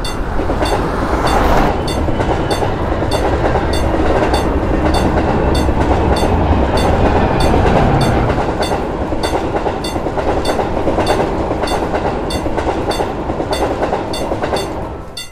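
A train passing over a level crossing: a loud, steady rolling rumble with clickety-clack that builds in the first second and fades just before the end. Under it the crossing's warning bell keeps dinging at an even beat.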